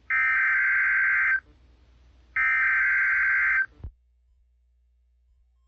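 EAS SAME header data bursts: two 1.3-second bursts of warbling, buzzy digital data tones about a second apart, the second and third repeats of the header that opens an Emergency Alert System message.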